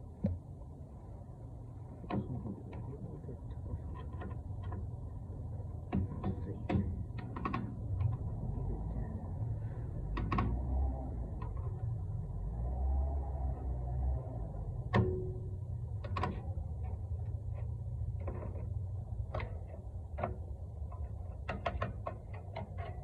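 Scattered metal clicks, clanks and scrapes of hand tools working on truck drum brake hardware, most likely the brake shoe return springs and shoes being pried loose, with a short metallic ring about two-thirds of the way through. A steady low rumble runs underneath.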